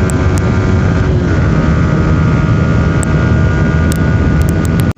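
Yamaha R15 V3's single-cylinder engine running steadily through its stock exhaust, with a few sharp ticks near the end; the sound cuts off abruptly just before the end.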